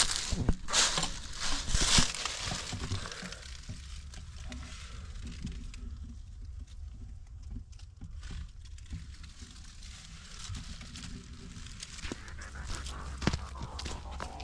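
Footsteps crunching through leaf litter on a forest trail, a few loud steps in the first two seconds, then softer scattered rustling over a low wind rumble on the microphone.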